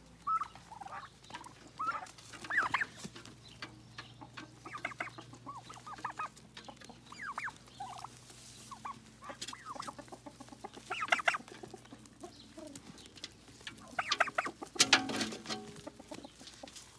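Flock of domestic turkeys making short, high chirping calls and clucks in clusters every second or two, with scattered clicks of beaks pecking at a hand-held bunch of grapes.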